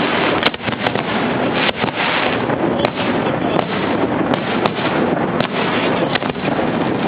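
Fireworks fired at close range from a barge: many sharp bangs scattered irregularly through a steady, dense rush of noise.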